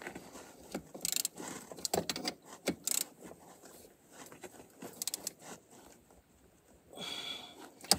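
Metal hand tools and parts clinking and knocking at irregular intervals, with small clusters of sharp clicks.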